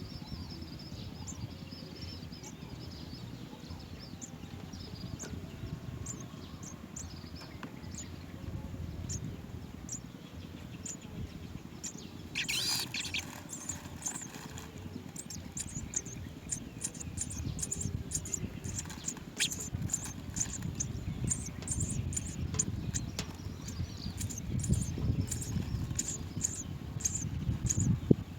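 House sparrow nestlings giving short high chirps at the nest over a steady low rumble. A louder flurry of calls comes about twelve seconds in, and the chirps grow more frequent in the second half.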